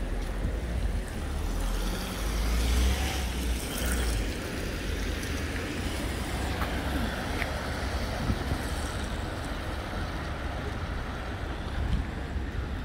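City street ambience: wind rumbling on the microphone over a steady hiss of road traffic, louder for a while a few seconds in.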